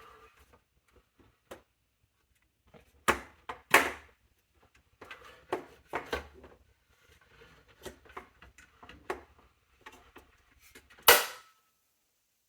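Clicks and knocks of hands handling the parts of a small form factor desktop computer case being opened, with two louder knocks about three and four seconds in and a sharp one near the end.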